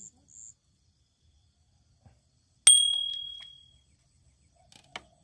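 A single sharp metallic ding, like a small bell struck once, ringing at two high pitches and fading over about a second. A faint click follows near the end.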